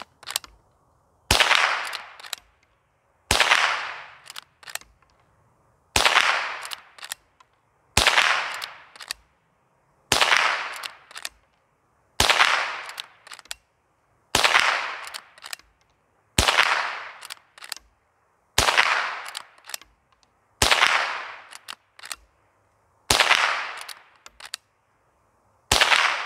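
Henry .22 LR lever-action rifle fired twelve times, about two seconds apart, each shot trailing off over about a second. Small clicks follow each shot as the lever is worked to chamber the next round.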